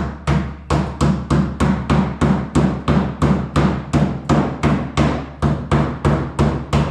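Steady hammer blows on the bent-down sheet-metal lip of a pickup's bedside wheel arch, straightening it, at about three strikes a second.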